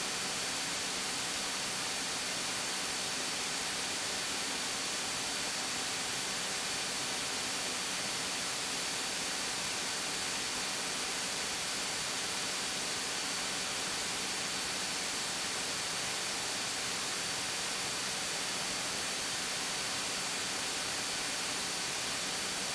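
Steady hiss from a light airplane's headset intercom and radio audio feed, with faint steady whining tones in it.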